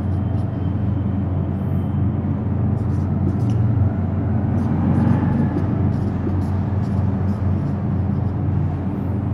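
Steady low background rumble with a hum. Faint short strokes of a marker writing on a whiteboard sound over it.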